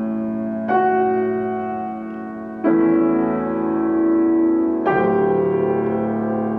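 Steinway & Sons grand piano playing slow, sustained chords: a new chord struck about every two seconds, three in all, each left ringing and slowly fading.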